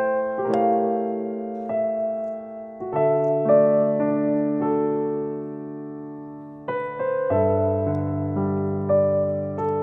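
Background piano music: a slow melody of struck notes over held chords, the harmony changing a few times.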